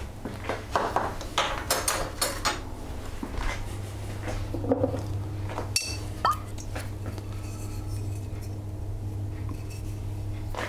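Kitchen utensils and containers clinking and clattering as they are handled, with a cluster of clicks in the first couple of seconds and a few scattered ones later, over a steady low hum.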